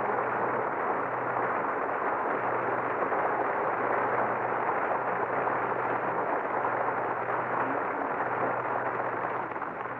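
Studio audience applauding steadily at the end of a song, over a steady low hum from the old radio transcription.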